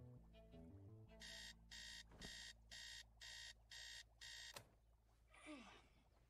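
Digital alarm clock beeping: seven short electronic beeps about two a second, stopped by a sharp click.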